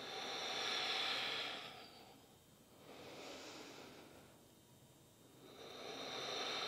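A woman breathing audibly in slow, deliberate breaths: three separate breath sounds, paced to a yoga movement of inhaling up and exhaling down.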